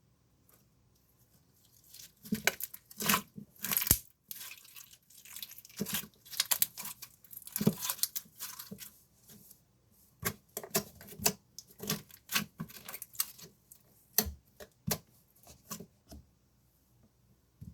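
Slime being squeezed and pulled by hand, giving a run of irregular pops and crackles that starts about two seconds in.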